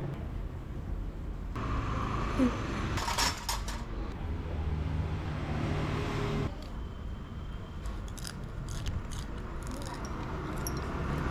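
Light clinks of metal cutlery and tableware against a ceramic bowl and wooden table, a few scattered clicks over a steady low background hum.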